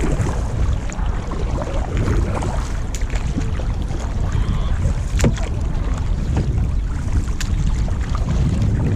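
Wind buffeting the microphone from a canoe on open water, a steady low rumble, with a few short sharp clicks or splashes scattered through it.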